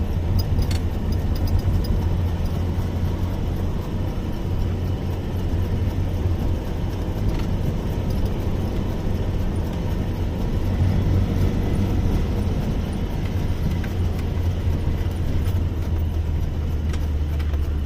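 A vehicle travelling along a road: a steady low engine drone under an even rush of road noise.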